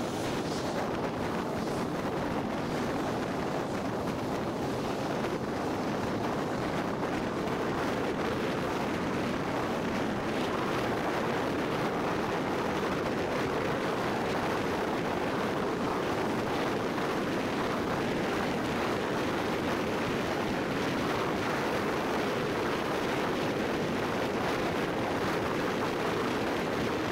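Steady road and wind noise from a vehicle driving on a highway, a little louder as it picks up speed.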